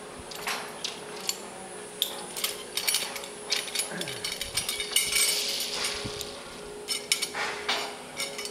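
Irregular metallic clinking and clattering of zipline gear, carabiners and pulley trolleys being handled as a rider is unhooked, with a brief hiss around the middle.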